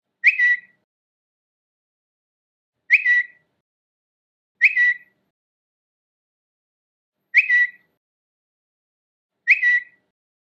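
Twitter notification sound: a short, high chirp, heard five times at uneven gaps of about two to three seconds.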